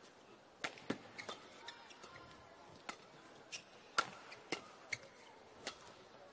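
Badminton rally: rackets striking the shuttlecock in a fast exchange of sharp, separate clicks, roughly one to two a second.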